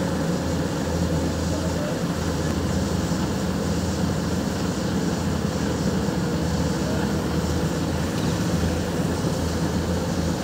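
Heavy quarry crane's engine and hoist winch running steadily with an even low hum, lifting a crawler excavator on its cables.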